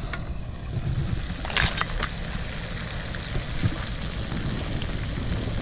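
Wind buffeting the microphone, a steady low rumble, with a brief sharp noise about a second and a half in.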